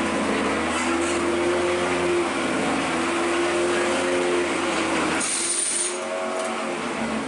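A steady mechanical hum over a dense bed of noise, with a short high hiss about five seconds in.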